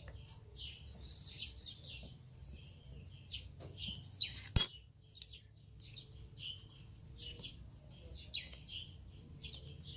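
Small birds chirping in short, repeated calls over a faint low hum, with one sharp click about four and a half seconds in.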